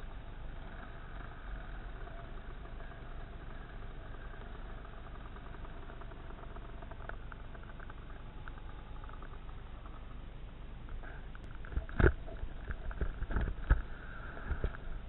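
Dirt bike engine running at low speed on a rough descending trail. Several loud knocks come about twelve to fourteen seconds in.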